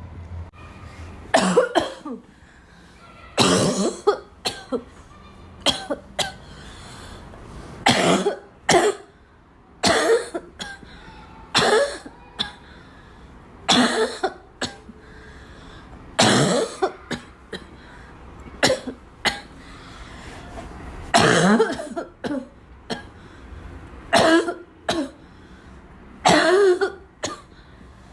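A girl coughing over and over, in single and paired coughs about every one to two seconds.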